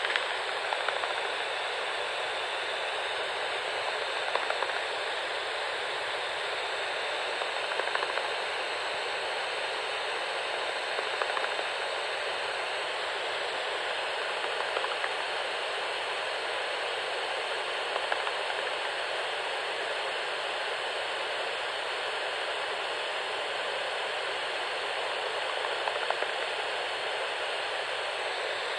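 Bat detector hissing steadily, with faint scattered clicks and brief louder patches every few seconds as bats echolocate while hunting over the water.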